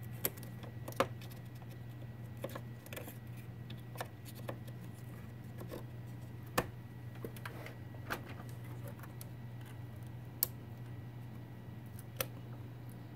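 About ten irregular sharp plastic clicks and taps as DDR4 memory modules are pressed into the motherboard's DIMM slots and handled, the loudest about a second in and again past the middle. A steady low hum runs underneath.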